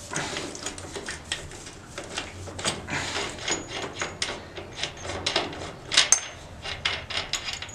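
Irregular metallic clicks and clinks from a motocross bike's rear axle nut and axle hardware being worked loose by hand to take the rear wheel off. A couple of short, ringing metal chinks come through, the loudest about six seconds in.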